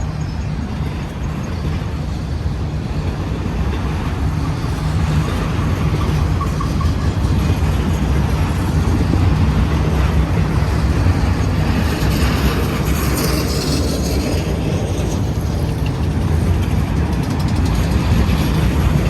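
Union Pacific autorack freight cars, apparently running empty, rolling past close by: a loud, steady rumble and rattle of wheels on rail, with a brief brighter hiss about two-thirds of the way through.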